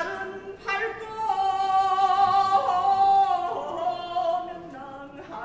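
A woman singing in long held notes, the pitch stepping down near the end.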